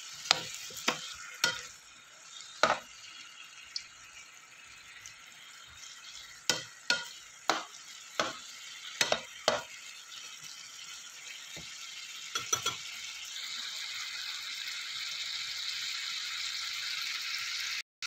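Chicken pieces and sliced onions sizzling as they simmer in a sauce reducing to thicken, with a stirring utensil knocking against the pan in clusters of sharp taps. The sizzle grows a little louder after the taps stop and then cuts off abruptly near the end.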